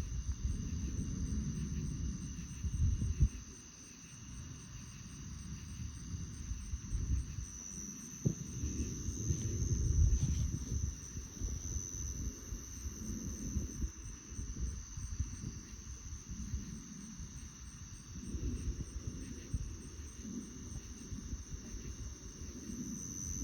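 Insects, crickets or katydids, trilling steadily in high, thin tones, one of them in a rapid even pulse, over an irregular low rumble that swells and fades.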